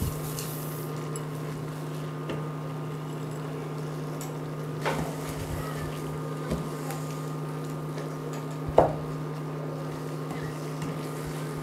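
Steady electrical hum of an induction cooker with a faint high tone over it. Rice hisses into a stainless steel pot right at the start, then is stirred into the onions with a wooden spoon that knocks against the pot a few times, loudest about three quarters of the way through.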